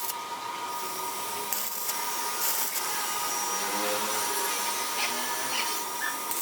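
A power tool running: a steady whine under a hiss, with a few short bursts of louder hiss.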